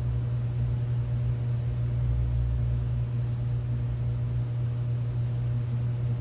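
A steady low mechanical hum with an even hiss, unchanging throughout.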